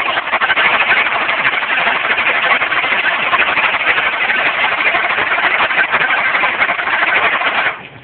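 2010 Dodge Charger engine running with a rapid ticking, from a misfire on cylinder 5 that the owner puts down to its intake valve. The sound cuts off suddenly near the end.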